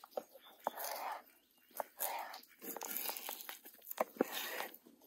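A kitchen knife cutting food on a wooden cutting board: irregular sharp knocks of the blade on the board mixed with short crunching, scraping slices.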